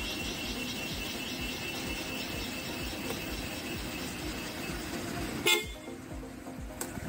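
Maruti Gypsy 4x4 running under way on a rough off-road track, a steady low engine rumble. About five and a half seconds in there is a brief loud sharp sound, after which the rumble drops for about a second.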